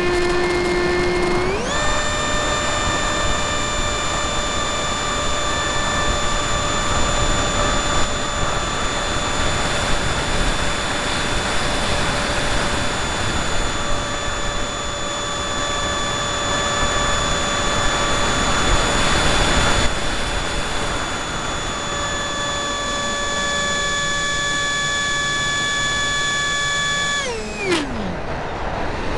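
RC model plane's motor and propeller whining steadily in flight, heard from a camera on the plane's nose, with air rushing past. About a second and a half in, the pitch steps up as the throttle opens. Near the end it drops away quickly as the motor is throttled back.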